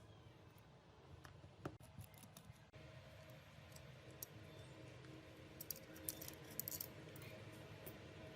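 Faint, scattered light clicks and taps of small hand tools and parts on a hard surface, over a low steady hum. A quick cluster of clicks comes about six to seven seconds in.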